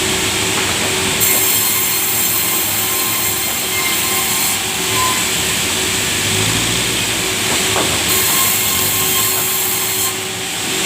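Sawmill saw running through a very large log, a steady mechanical whine, with a sharper high hiss of the blade in the wood that comes and goes twice.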